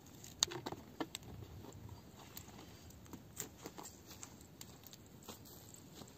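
Small wood campfire crackling, with scattered sharp pops at irregular intervals, several close together in the first second.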